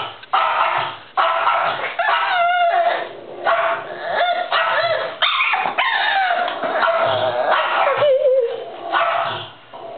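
A dog crying and yelping in a string of high, wavering wails with short gaps between them, easing off near the end.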